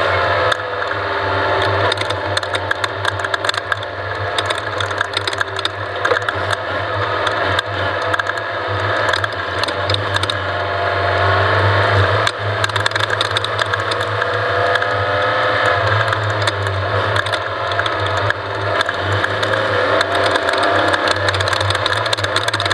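Off-road race vehicle running over rough ground, its engine revving up and down every few seconds under a constant clatter of rattles and knocks.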